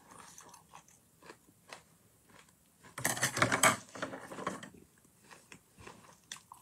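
A person chewing food close to a phone's microphone: scattered wet mouth clicks, with a louder run of crunching about three seconds in.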